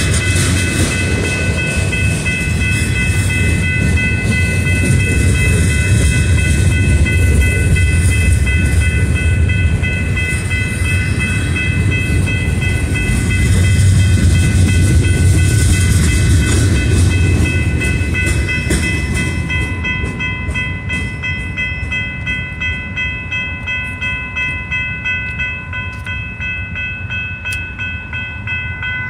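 Loaded freight gondola cars rolling past, a steady rumble of wheels on rail. The rumble fades over the last ten seconds as the end of the train passes, leaving quieter, regular wheel clicks. A steady high-pitched whine runs under it throughout.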